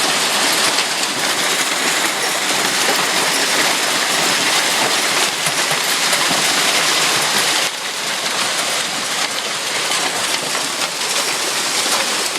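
Hail and heavy rain pelting down in a dense, continuous clatter of stones striking surfaces; it eases slightly about two-thirds of the way through.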